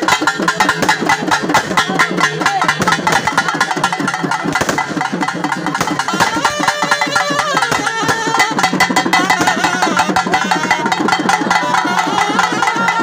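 Loud live traditional music: rapid, continuous drumming with a held, wavering melody line over it.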